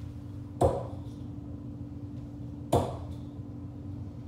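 Two steel-tip darts striking a Prodigy bristle dartboard, each a sharp, short thud, about two seconds apart.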